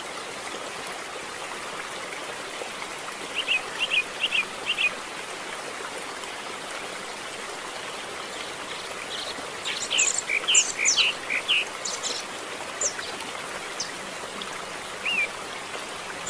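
Canary chirping in short, high cheeps: a run of four about three to five seconds in, then a busier flurry of quick chirps around ten to twelve seconds in, over a steady hiss.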